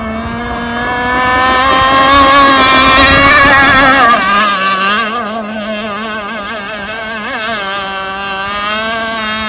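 Enforcer Stingray RC hydroplane boat's motor running flat out as it races past. It grows louder for the first few seconds, drops sharply in pitch about four seconds in as the boat passes close by, then runs on quieter with a wavering pitch as it heads away.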